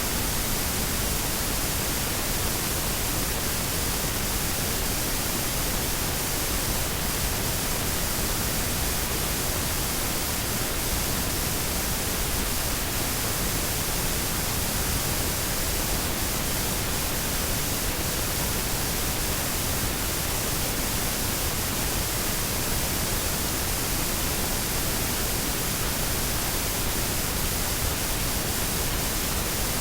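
Washing machine running: a steady, even hiss with no rhythm or change.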